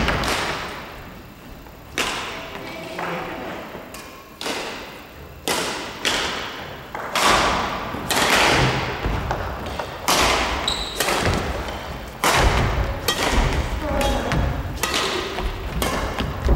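Badminton rally: rackets striking the shuttlecock back and forth, sharp hits about once a second that echo in a large hall, with heavy footsteps thudding on the wooden gym floor.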